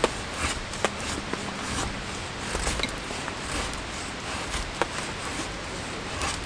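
Autumn rain pattering steadily, with scattered sharp ticks of single drops.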